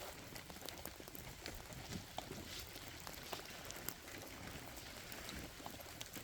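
Light rain and water drips falling on wet ground and leaves: many scattered, irregular small ticks over a faint hiss.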